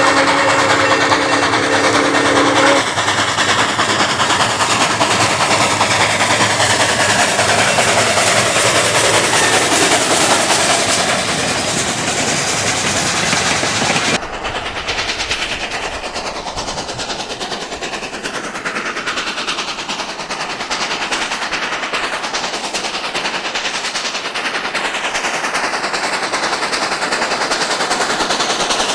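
Dubbed train sound effects: a chord horn sounding until about three seconds in, then the steady noise of a train running on the rails. About halfway through it cuts abruptly to a rapid, hard chatter like machine-gun fire, with slowly sweeping whines above it.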